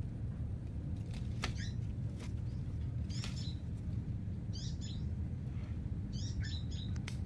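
A bird's short, high chirping calls, repeated every second or two, over a steady low background rumble, with a few faint sharp clicks.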